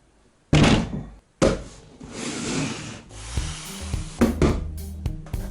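Two loud knocks, then about a second of scraping or rubbing. Background music with a beat starts about three seconds in.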